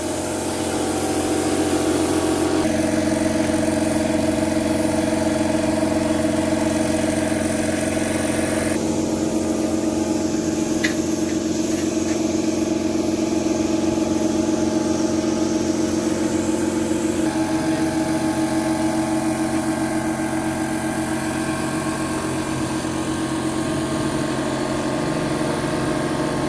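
A steady machine hum, like a motor or engine running at a constant speed, that changes character abruptly a few times.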